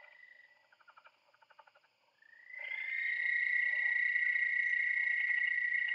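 Audio files played back through MATLAB for spectrum analysis: a high, steady tone with a rapid pulsing texture. It is faint and broken at first, then glides up slightly and becomes much louder about two and a half seconds in.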